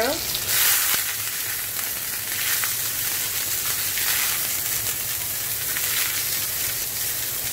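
Zucchini slices sizzling in olive oil in a very hot cast-iron skillet, charring. A steady hiss that surges about half a second in and again around four and six seconds in as the slices are turned with tongs.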